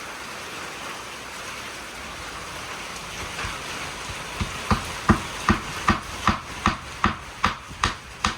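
Steady hiss of rain falling. From about halfway, a run of about a dozen evenly spaced knocks, about two and a half a second, sound over it.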